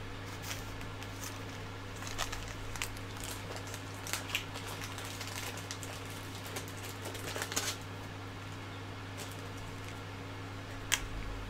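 Scattered small clicks and rustles of parts and a plastic bag being handled on a workbench, with a sharper click near the end, over a steady low electrical hum.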